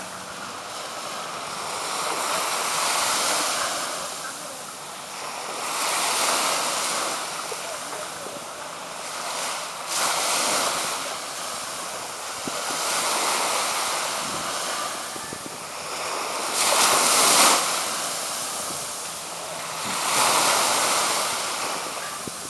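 Sea waves washing in over a shallow sandy beach, surging and falling back about every three to four seconds, six times.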